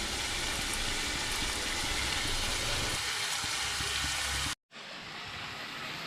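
Onions and tomatoes frying in butter and oil in a pan, a steady sizzle. It breaks off for an instant about four and a half seconds in and comes back softer.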